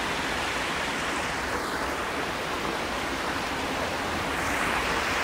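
Goldstream River's swift current rushing steadily, heard close up from the bank.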